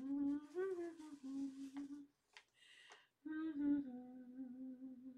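A woman humming to herself in long, steady notes, broken by a pause of about a second midway.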